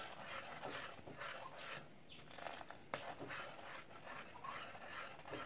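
A wooden spoon stirring sugar syrup made from coconut water in a metal pan on the stove, with soft, irregular scraping and sloshing strokes and a sharp click about three seconds in.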